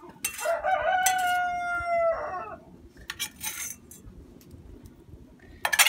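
A rooster crowing once, a single long drawn-out call that rises at the start, holds steady and falls away at the end. Short clinks and clatter of dishes follow, with a sharp clatter near the end.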